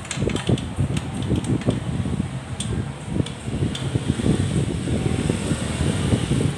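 Steady low rumble of moving air on the microphone, with light, scattered metallic clicks in the first four seconds from a hand tool tightening the 10 mm exhaust fasteners.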